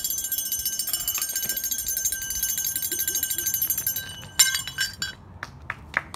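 Rapid metallic rattling with high ringing tones, stopping about four seconds in, followed by a sharp click and a few lighter clicks.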